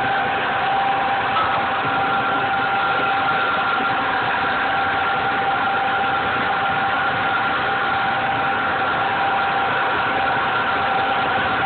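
Steady mechanical drone of commercial kitchen equipment, a fan-like rush with two steady tones running through it.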